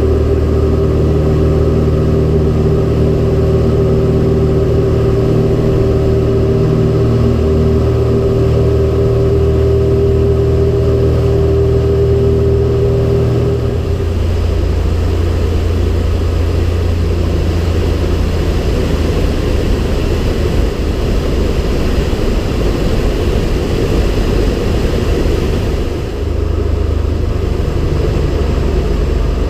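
Cessna 170B's six-cylinder Continental engine and propeller heard from inside the cockpit, a steady drone at first; about halfway through the steady note gives way to a rougher, noisier rumble.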